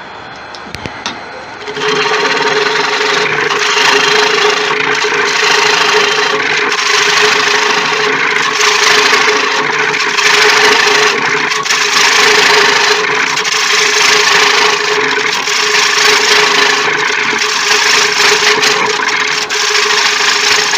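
Turning tool cutting into a large tiger wood bowl spinning on a wood lathe. The lathe hums on its own, then a loud, continuous cut starts about two seconds in and runs steadily, swelling and easing slightly, until it stops at the very end.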